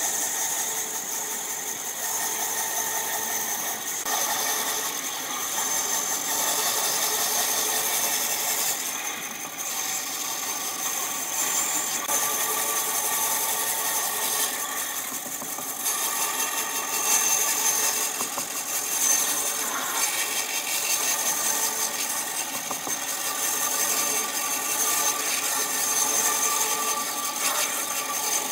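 Band saw cutting slowly through a thick wooden block, a continuous rasping saw noise with a thin high whine over it, swelling a little as the feed pressure changes.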